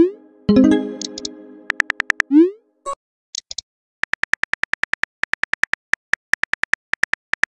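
Chat-app sound effects: a short rising pop and a ringing chime as messages appear, then a quick, even run of keyboard typing clicks, about five a second, for the last few seconds.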